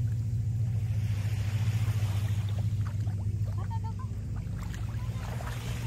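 A steady low engine drone with a constant pitch. Light splashes and ticks from wading in shallow water come over it in the middle.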